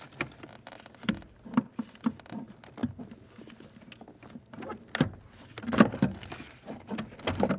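Irregular clicks, knocks and scrapes of a Ford EEC-IV engine computer's metal case being worked out of its snug mounting under a truck's dashboard, with the loudest knock about six seconds in.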